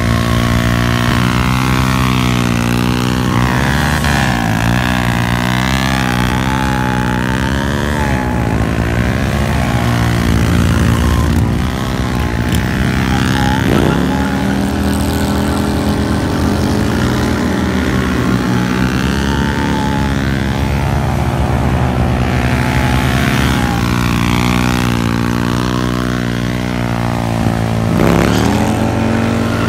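Honda Grom's small single-cylinder engine held at high revs while its rear tyre spins through burnouts and donuts. The revs dip and climb again every few seconds.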